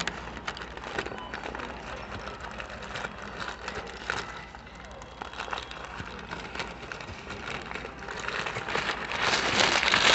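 Paper burger wrapper crinkling and rustling in many small crackles as it is peeled off the burger by hand, louder and denser near the end.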